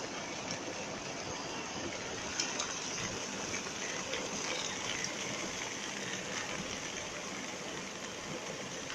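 Heavy rain pouring down, a steady rush of falling water and runoff that sounds like a waterfall, with a couple of faint taps about two and a half seconds in.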